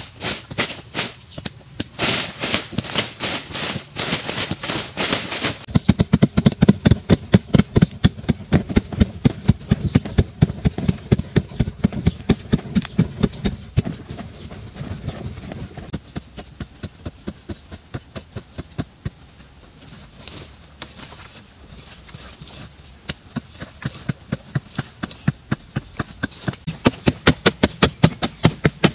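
Digging tools chopping into hard, sandy soil in quick, even strokes, about three a second. A thin, steady, high whine runs over the first six seconds and then cuts off suddenly.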